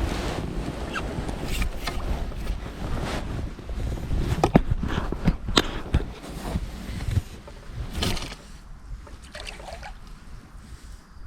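Water sloshing with rustling handling noise and a few sharp knocks, about four and a half and five and a half seconds in; the rumble eases near the end.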